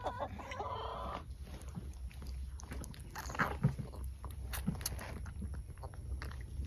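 Newborn Alpine goat kid sucking milk from a bottle nipple: a scattered run of small wet clicks and smacks. A short animal call sounds in the first second.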